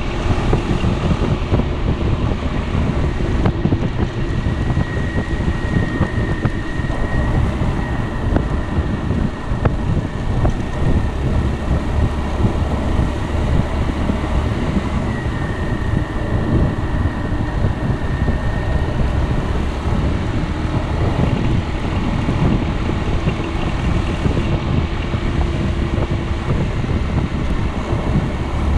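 Wind buffeting the microphone over the steady running of a Piaggio Beverly 300 scooter's single-cylinder engine and road noise while riding.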